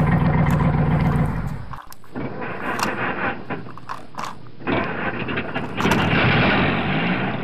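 Plastic toy dump truck pushed over rough stones: its wheels and body rattle, knock and scrape against the rocks in irregular bursts. Electronic music at the start cuts off about a second and a half in.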